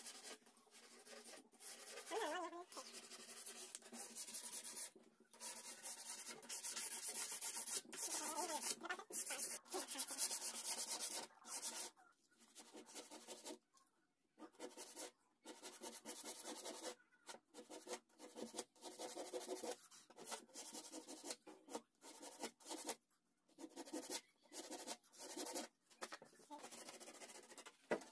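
Wood filler paste being rubbed and scraped into carved teak wood: irregular dry scraping strokes with short pauses between them.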